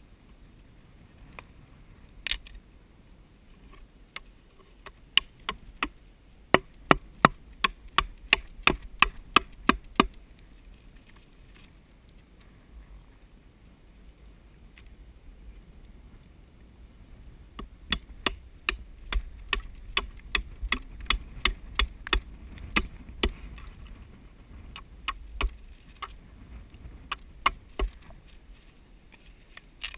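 Hammer blows on wood, driving shims to wedge a wooden nest box into a hollow in a dead tree trunk. There are two runs of quick, sharp strikes at about three a second, with a few single blows before and between them.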